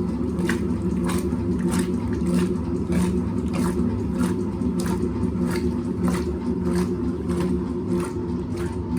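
Hoover 820 top-loading washing machine agitating a wash load: a steady motor and transmission hum, with a swish of water about twice a second as the agitator swings back and forth.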